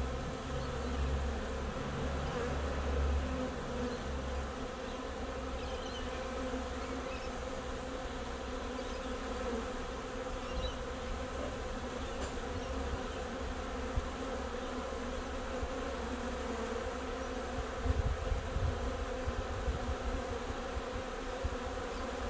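Steady buzzing of a large swarm of honey bees crowding at a hive entrance as the swarm is hived and walks in.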